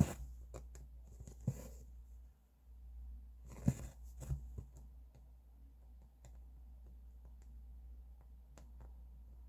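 Hand cross-stitching: the needle ticks as it pokes through the fabric and the thread rasps as it is drawn through, three longer pulls near the start, about a second and a half in and near the middle, with small clicks between, over a steady low hum.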